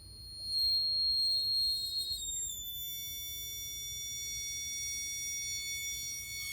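Air conditioning unit giving off a high-pitched whine of several steady tones as it shuts down, a noise the owner says it shouldn't make when it stops. The whine grows louder about half a second in and shifts down to a lower set of tones about two and a half seconds in, then holds steady.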